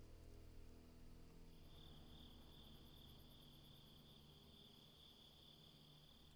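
Faint chorus of night crickets, a steady high trill that comes in about a second and a half in, over low held tones of the film score dying away.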